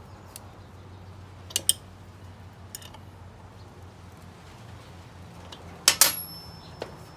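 Light metallic clinks of a half-inch wrench against the steel hex bolts that clamp the propane burner tube into the furnace, over a faint steady hum. A few scattered taps, then two sharp clinks about six seconds in with a brief metallic ring.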